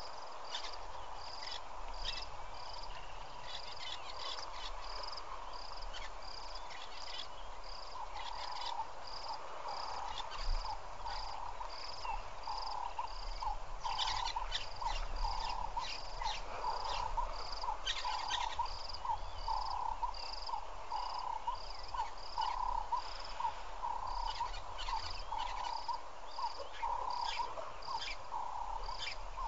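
Repeated calls of small animals: a high-pitched short call repeating about one and a half times a second throughout. About eight seconds in, a lower pulsing call joins at a similar pace, over a faint steady hiss.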